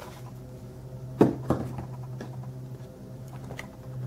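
Diecast model truck being handled: two sharp knocks about a second in, then a few light ticks, over a steady low hum.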